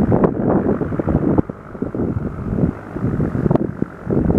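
Wind buffeting the microphone in uneven gusts.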